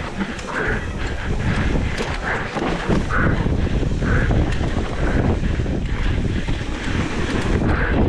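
Mountain bike ridden fast down a rough trail: wind buffeting the on-bike or helmet microphone over a steady rumble of tyres and frame, with frequent small knocks and rattles.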